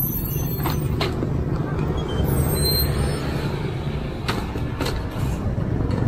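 A heavy vehicle's engine running with a steady low rumble, with a few sharp knocks of wooden boards and debris being handled and dropped.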